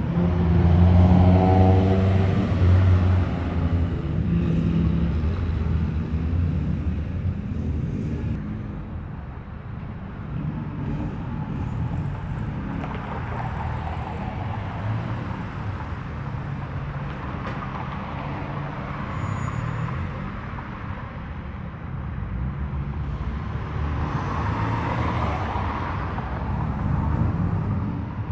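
Cars driving slowly past one after another. A loud engine rumble close by in the first few seconds is followed by quieter engines and tyre noise that swell and fade a few times as further cars go by.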